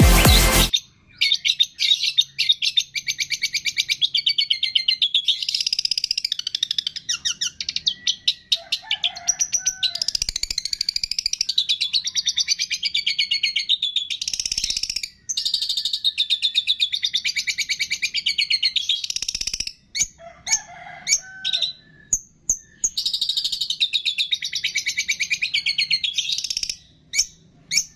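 Caged songbird singing a fast, unbroken chattering song of high chirps and trills, with short pauses, as played for bird-song training.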